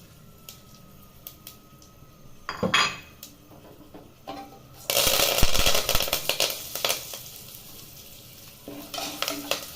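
Curry leaves dropped into hot oil in a pressure cooker, crackling and sizzling loudly about five seconds in and dying down over the next few seconds. Before that, a few light clinks of a utensil against the pot and a short clatter.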